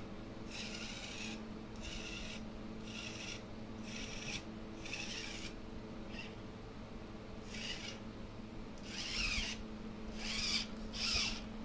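Axial SCX24 micro RC crawler's small electric motor and gearbox whirring in short throttle bursts, about a dozen in all, each under a second and raspy. The bursts are loudest near the end, over a steady low hum.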